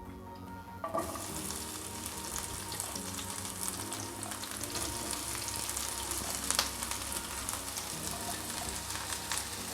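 Sliced onions sizzling as they fry in hot oil in a kadai. The sizzle starts suddenly about a second in, as the onions go into the oil, and there is a sharp clink from the stirring spoon about six and a half seconds in.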